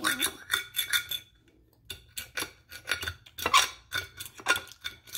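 Utensil clinking and tapping against a dish while eating, an irregular run of sharp clicks about two or three a second, with a short pause a little over a second in.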